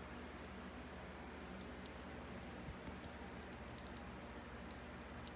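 A kitten playing with a braided string toy on a hardwood floor: faint scattered jingling and light ticks, with a few brighter clusters about one and a half and three seconds in, over a steady low hum.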